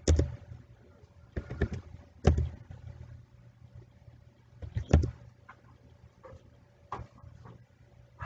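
Computer keyboard keys struck one at a time, a handful of separate thumping taps a second or two apart, over a low steady hum.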